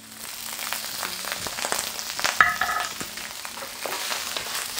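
Egg fried rice with prawns sizzling in a hot stainless steel pan while a wooden spatula stirs and scrapes through it. A brief, thin tone sounds about halfway through.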